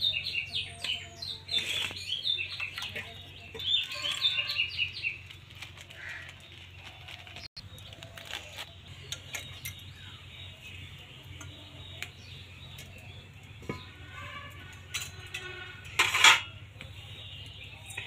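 Small birds chirping rapidly for the first few seconds, over light clinks of steel plates and metal cookware being handled. A louder clatter of cookware comes near the end.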